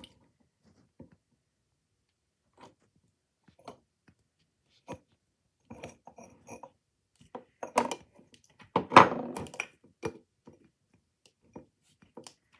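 Things being handled and set down on a towel-covered desk: scattered light knocks and rustles, with a louder cluster of clatter about eight to nine and a half seconds in.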